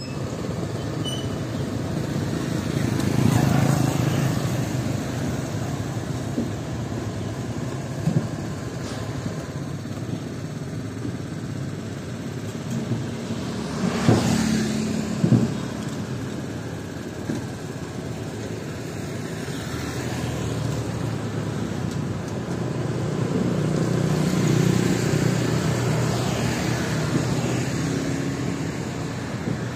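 Road traffic: motorbikes and cars passing close by, the noise swelling as each one goes by, with one passing about halfway through. Two short sharp knocks about halfway through, a second or so apart.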